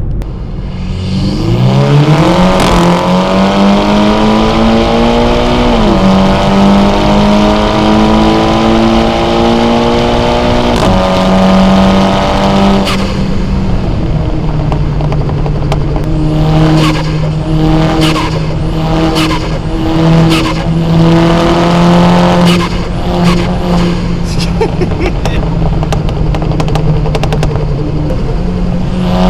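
Car engine and exhaust being driven hard. The revs climb steeply at first, dip briefly about six seconds in, then settle into a steady drone that steps down in pitch twice. Over the second half a run of sharp crackles sounds over the drone.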